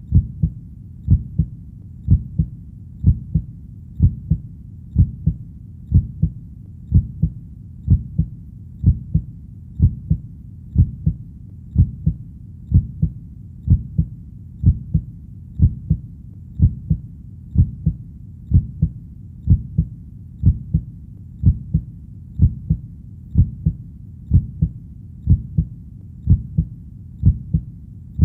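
Heartbeat sound: a steady, slow pulse of low lub-dub double thumps, about one beat a second.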